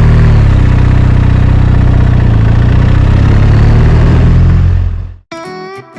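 BMW R1250RT's boxer twin engine running on the move, its note dipping slightly at the start and then holding steady. It fades out about five seconds in, and acoustic guitar music starts just before the end.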